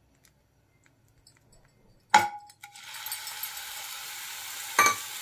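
Spice paste dropped from a steel bowl into hot mustard oil in a frying pan: a sharp metallic clink about two seconds in, then a steady sizzle as the paste fries, with a second knock near the end.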